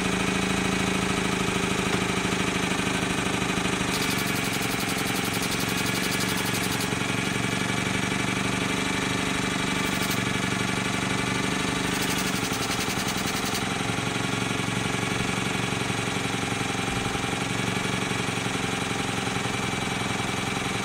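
Stuart Sirius twin-cylinder model steam engine running steadily at speed, a fast even beat with a steady hum that sounds like a modern car.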